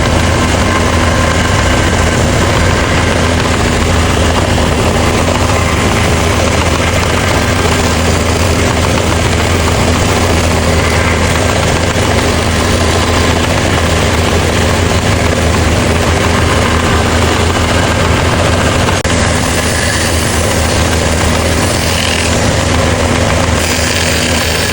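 An electric power tool running steadily, a loud constant whir over a low hum.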